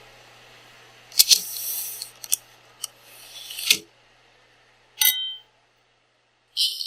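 A string of short sound effects set off as windows are clicked in an interactive animation: sharp clicks with brief hissy rustles, a hiss that ends in a falling swoop, then a short ringing clink about five seconds in. After a second of dead silence a jingling rattle begins near the end.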